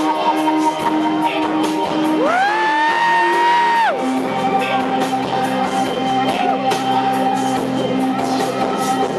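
Live rock band playing an instrumental passage over a PA, with sustained bass and guitar notes. A little past two seconds in, a single loud whoop glides up in pitch, holds for about a second and a half, then drops away.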